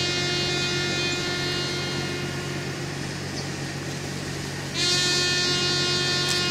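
A lone trumpet sounding a slow ceremonial call for the fallen, in long held notes; a new note starts about five seconds in. A steady low hum runs underneath.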